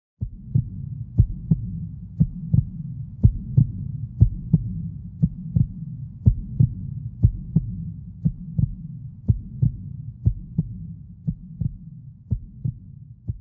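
Heartbeat sound effect: pairs of short low thumps about once a second over a continuous low rumble, growing gradually fainter toward the end.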